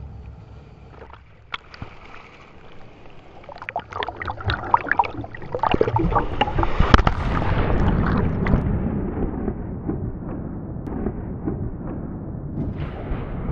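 Ocean water close up: crackling splashes and bubbling that swell to a peak about seven seconds in, then settle into a steady rush of surf.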